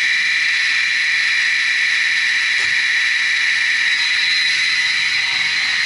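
A steady, even hiss with no change in level or pitch.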